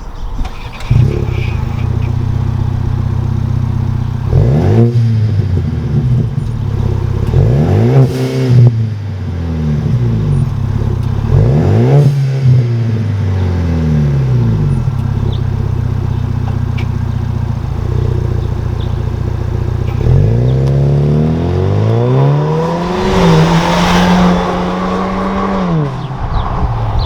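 Ford Maverick engine through a Thermal R&D cat-back exhaust, idling with three quick revs and then a longer rev that is held for a few seconds before dropping back to idle.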